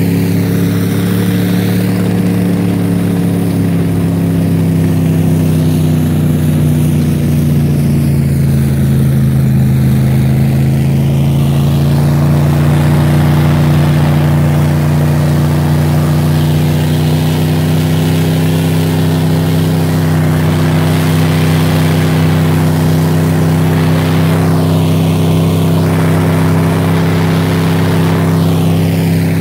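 Snowcat engine running steadily as the machine climbs a snowy trail, its pitch sagging briefly about a third of the way through and then holding. A constant rushing hiss runs underneath.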